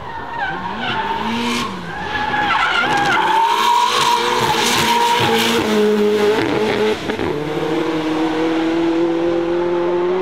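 Nissan Silvia S15's turbocharged SR20DET four-cylinder engine revving up and down hard while the tyres squeal in a smoky drift. It then settles into steady acceleration, its pitch rising slowly as the car pulls away.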